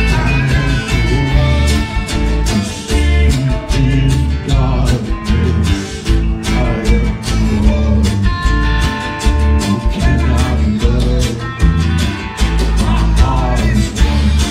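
Live alt-country band playing: electric guitar, acoustic guitar, electric bass and drum kit, with a steady drumbeat.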